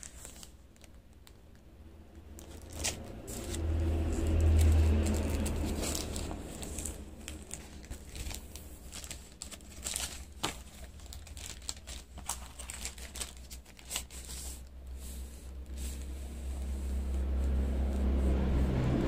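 Record sleeves rustling and crinkling as a vinyl LP is slid out and handled, with scattered light clicks. A low rumble swells about four seconds in and again near the end.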